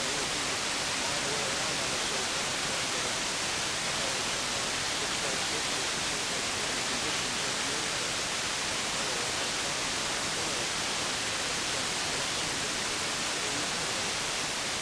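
CB radio receiver hissing with steady band static on an open channel, between transmissions while waiting for a distant station to come back.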